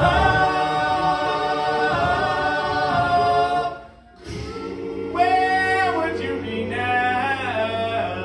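Male a cappella group singing the closing held chords of a song, a lead voice over sustained low harmony. The chord breaks off briefly a little before halfway, then a final chord is held with the lead voice's line bending above it.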